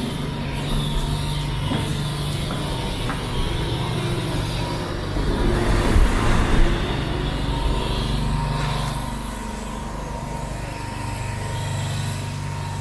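Motor vehicle engine running close by with a steady low note, growing loudest about six seconds in and then easing off, as on a passing or slow-moving car or truck.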